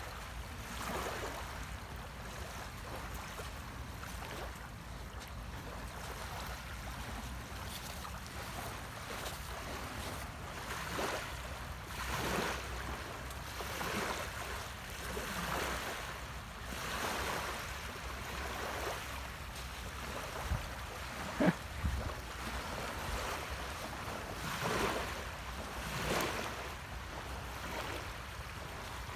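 Small waves washing onto a sandy shore, coming in soft swells every few seconds over a steady wind rumble on the microphone. A couple of sharp taps come about two-thirds of the way through.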